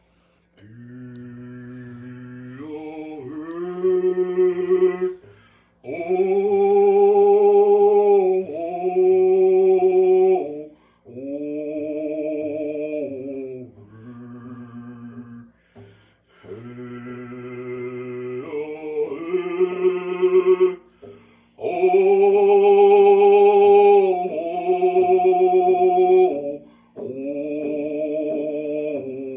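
A man singing a hand-drum song, long held notes in phrases with short breaks between them, over a steady beat on a single-headed frame hand drum struck with a beater.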